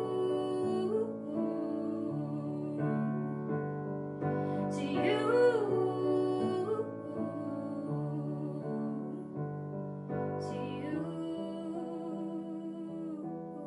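Kawai digital piano playing slow, sustained chords, with a woman singing two short gliding phrases over them, about five and ten seconds in.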